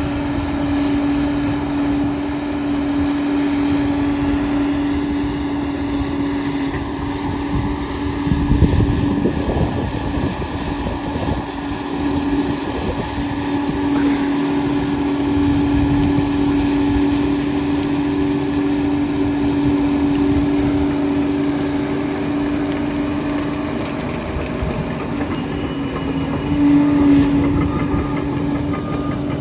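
Liebherr 746 crawler dozer running, its diesel engine working with a steady whine over a low rumble. A louder surge of noise comes about eight to nine seconds in, and there is a brief louder moment near the end.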